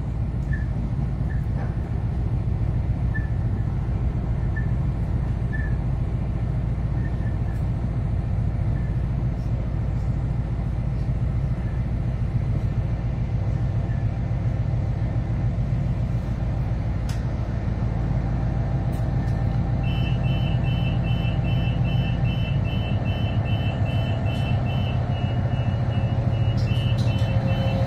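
Cabin noise inside an Adelaide Metro 3000-class diesel-electric railcar: the diesel's steady low drone and running noise as the train slows into a station and comes to a stand. About twenty seconds in, a rapid electronic beeping starts and repeats for several seconds.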